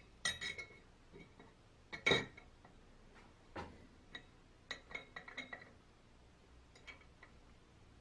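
Brass and copper sprayer parts clinking together as a thin metal tube and a brass fitting are set into the neck of a copper tank: a series of light, separate clinks with a short ring, the loudest about two seconds in.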